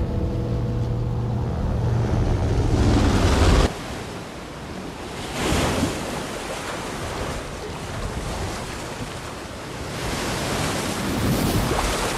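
Ocean surf washing and breaking on a beach, a steady rush with two louder surges, one about halfway through and one near the end. It opens under a sustained low drone that swells and cuts off sharply a few seconds in.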